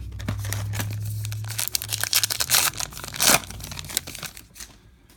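Baseball card pack wrapper being torn open and crinkled: a dense crackle starting about two seconds in, loudest a little after three seconds, dying away near the end.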